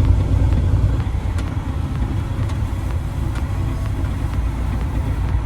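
A vehicle running or driving, a steady low rumble with a few faint ticks.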